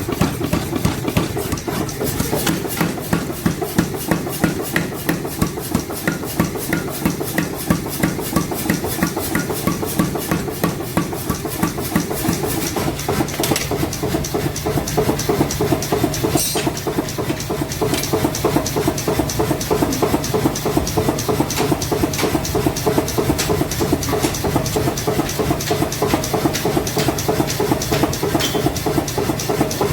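Forging power hammer running, striking steel in rapid, evenly spaced blows, several a second, over a steady machine hum.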